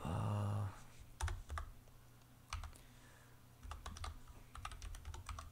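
Computer keyboard keystrokes in small clusters of a few taps, then a quicker run of taps in the second half. A short low hum comes first.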